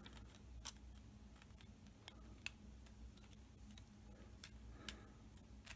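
Near silence with a few faint, irregularly spaced light clicks of 3D-printed plastic parts knocking together as the piston block is fitted onto the toy's frame.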